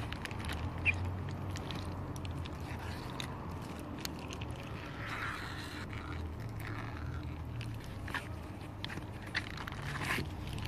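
A plastic bag crinkling and scraping as it is squeezed and pressed against a foam to-go box: an irregular scatter of small crackles and clicks.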